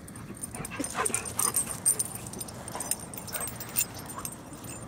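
Dogs at play giving several short whines and yips, clustered about a second in and again near the end, over scuffling and rustling.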